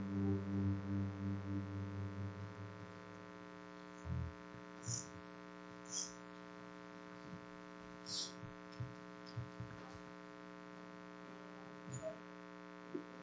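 The last of the worship music dies away over the first two seconds or so. After that comes a steady electrical hum from the sound system, with scattered faint knocks and thumps.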